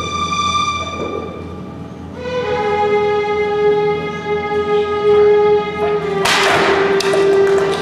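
Music of long held notes, a new sustained note entering about two seconds in; about six seconds in, audience applause breaks out over the music.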